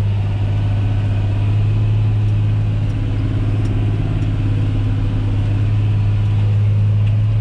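John Deere 8100 tractor's six-cylinder diesel engine running steadily under load, pulling a disc cultivator, heard from inside the closed cab as an even low hum.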